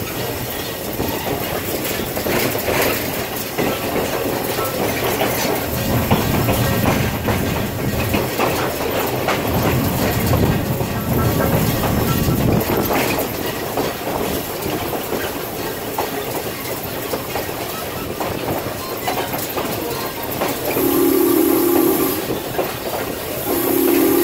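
Running noise of a passenger car pulled by steam locomotive CN #7470: a steady rumble with wheels clicking over the rail joints. Near the end the locomotive's chime steam whistle sounds twice, a short blast and then a longer one.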